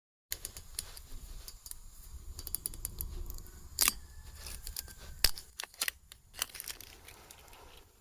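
Close handling noises: crinkling and tearing with many sharp clicks, and two louder snaps about four and five seconds in.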